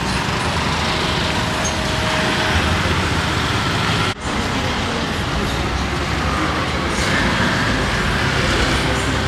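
Busy street ambience: steady traffic noise with vehicles passing, mixed with indistinct voices of people. The sound cuts out for a moment about four seconds in.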